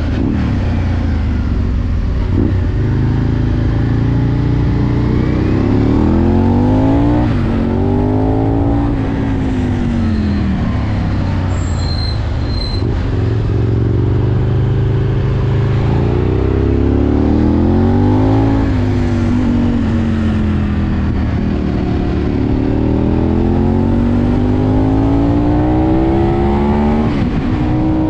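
Onboard sound of an Aprilia Tuono V2's V-twin engine accelerating hard several times, its pitch rising and then dropping sharply at each upshift, and falling more slowly as the throttle closes for the bends, over steady wind rush.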